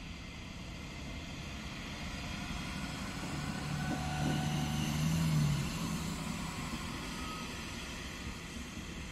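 Koleje Dolnośląskie SA135 (Stadler GTW) diesel multiple unit passing by, its engine hum and wheel noise swelling as it goes close past about four to five seconds in, then fading as it moves away.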